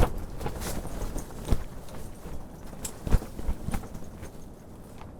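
Gusty wind buffeting the microphone in a low rumble that eases off toward the end, with a few sharp knocks and taps at irregular moments.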